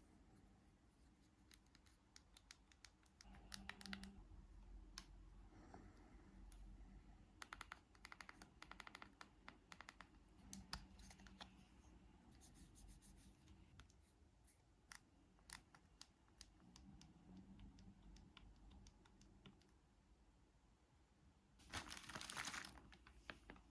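Faint plastic clicks of old mobile phones being handled, their buttons pressed singly and in quick runs, with a brief scraping rustle near the end.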